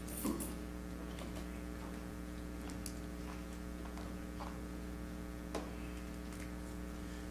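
Steady electrical hum, with faint scattered clicks and knocks from children shuffling and settling down on carpeted steps. A soft thump comes about a third of a second in.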